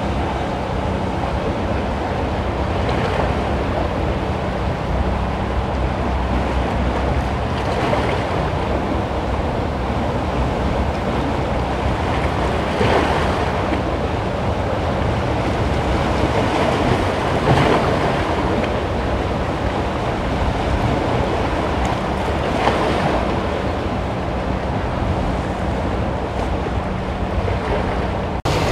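Choppy inlet water washing and splashing against boulders at the waterline, with wind on the microphone. A bigger surge breaks over the rocks about every five seconds, over a faint steady low hum.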